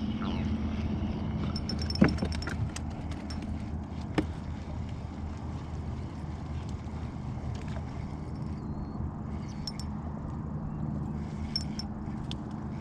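A small fishing boat's motor running steadily with a low, even hum, while a fish is played on the rod. Two sharp knocks come about two and four seconds in.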